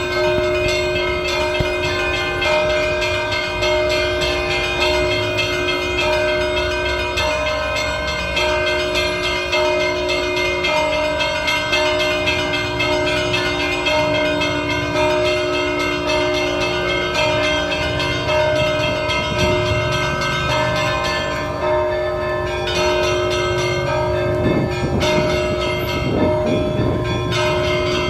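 Russian Orthodox church bells ringing, many bells sounding together with long, overlapping tones in a continuous peal.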